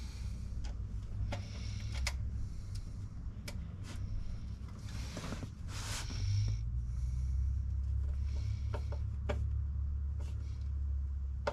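Scattered clicks and a scrape as a tool works on the amplifier's wire connections, over a steady low hum.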